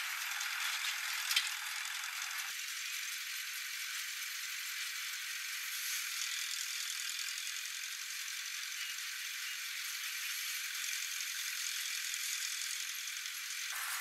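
Rice threshing machine running: a steady, thin rattling hiss with no low rumble, as the drum threshes rice stalks and blows out straw. A single sharp click comes about a second and a half in.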